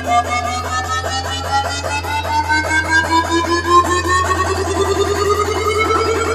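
Music with a melodic line that rises steadily in pitch, over a fast repeating pulse and a steady low drone.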